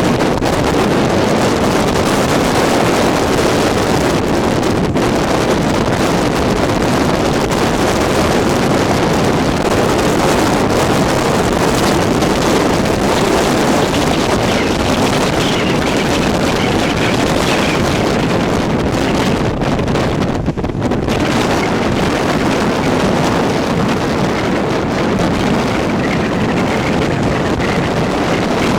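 Tropical-storm wind blowing steadily and loudly, buffeting the microphone, with a brief lull about twenty seconds in.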